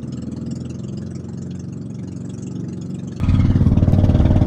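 Engine of a bangka outrigger boat running steadily while the boat is under way. About three seconds in, the sound turns much louder and stays that way.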